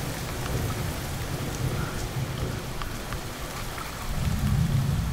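Heavy rain falling on an asphalt road, a steady hiss of drops hitting the wet pavement, with a low rumble of wind that grows stronger about four seconds in.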